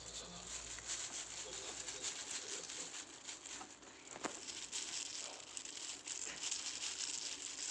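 Faint scratchy rustling and light patter from a bird shuffling and rubbing against a wooden perch, with one sharp click about four seconds in.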